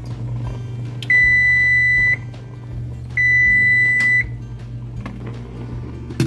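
Whirlpool electric range's kitchen timer beeping at the end of its countdown: two long, steady, high beeps of about a second each, a second apart, signalling that the set time has run out. A short clink comes near the end.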